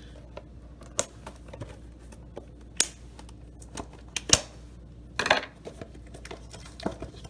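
Hands handling a cardboard trading-card blaster box and its packs: a few scattered sharp clicks and taps, and a short scraping rustle about five seconds in.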